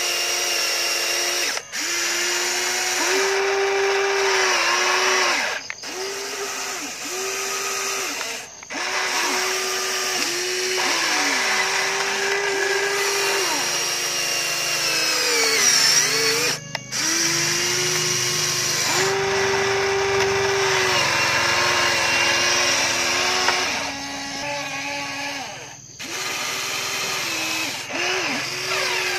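Electric motors of a Huina RC excavator whining as the boom, arm and bucket dig and lift mud. The whine stops and starts again as each movement ends, and its pitch sags when a motor is under load, most clearly about halfway through.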